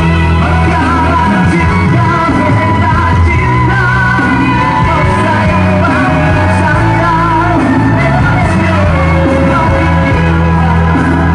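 A man singing through a handheld microphone over amplified backing music with a steady bass line, holding notes with vibrato.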